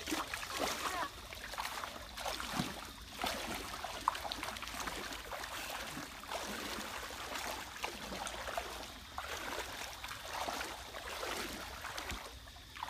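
Legs wading through shallow stream water, with irregular splashing and sloshing.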